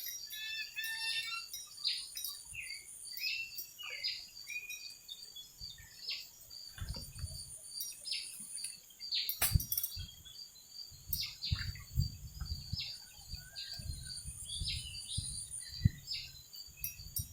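Outdoor ambience: many birds chirping and calling over a steady high insect buzz. From about six seconds in there are low rumbling bumps, and two sharp clicks stand out, one near the middle and one near the end.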